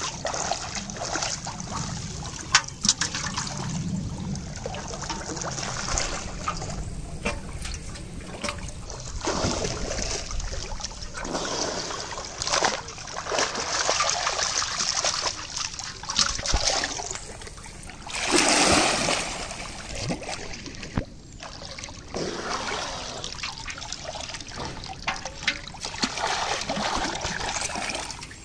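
Shallow pond water splashing and sloshing as a wader's hands and thrashing carp churn the surface, with many sharp splashes over a steady slosh. The loudest splash comes about two-thirds of the way through.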